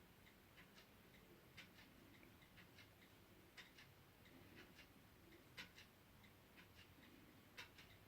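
Faint, irregular clicks of typing on an iPhone 6s touchscreen keyboard as a Wi-Fi password is entered, a few clicks a second with short pauses between runs.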